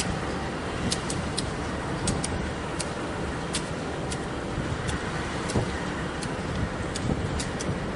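GE C44-9W diesel-electric locomotive idling at a standstill: its 16-cylinder GE 7FDL diesel gives a steady, even rumble. Scattered short, sharp ticks sound over it.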